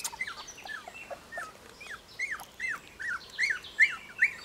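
A three-week-old Cocker Spaniel puppy whimpering in a quick series of short squeaks, each rising and then falling in pitch, about three a second.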